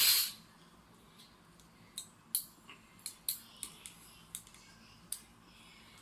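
Ganzo G202 folding multi-tool being handled: a short loud scrape at the start, then a string of sharp metallic clicks over about three seconds as its spring-loaded pliers are worked open and shut.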